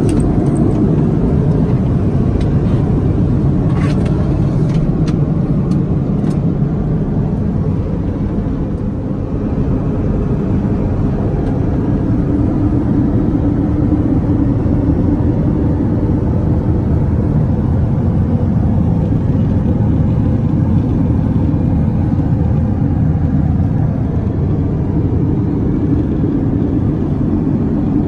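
Steady low rumble of in-flight cabin noise aboard an Airbus A330neo airliner, the engines and airflow heard from inside the cabin. A few light clicks come in the first few seconds.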